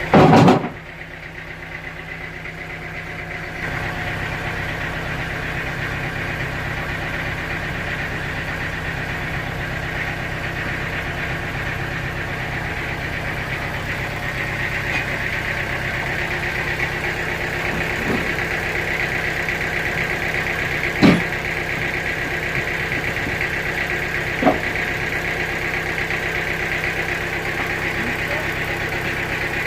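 Sawmill machinery running steadily with an engine-like hum. A loud burst comes right at the start, and a few sharp knocks follow later, the loudest about two-thirds through.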